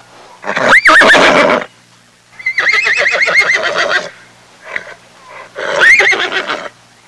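Horse whinnying three times, the middle call the longest, its pitch wavering up and down.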